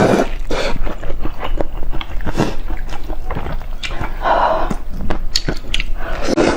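Close-miked eating sounds: chewing and biting with many short wet mouth clicks, and a louder crunch about four seconds in.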